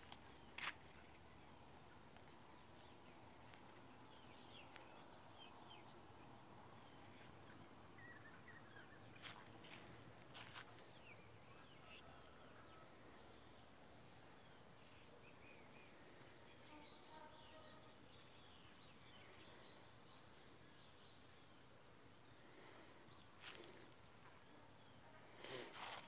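Faint dawn countryside ambience: a steady high-pitched insect trill with scattered faint bird chirps. A few footsteps on dry ground come now and then, a little louder near the end.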